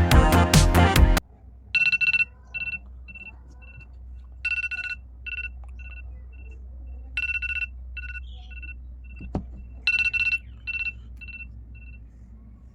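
Smartphone timer or alarm tone: an electronic beep pattern that repeats four times, about every two and a half seconds, each round a longer beep followed by a few shorter beeps that fade away. Background music cuts off about a second in, before the tone starts.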